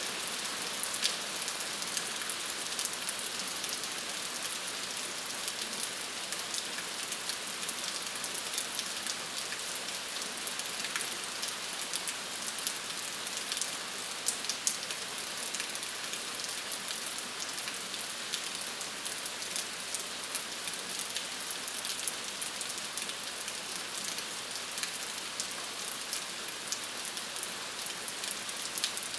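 Steady rain, an even hiss with many small drop patters scattered through it.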